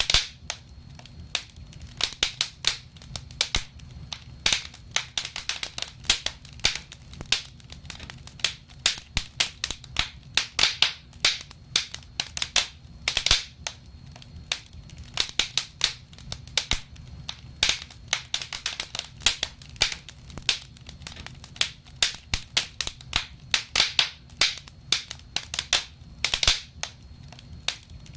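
Fireplace fire crackling, with irregular sharp pops and snaps several times a second over a low steady hum.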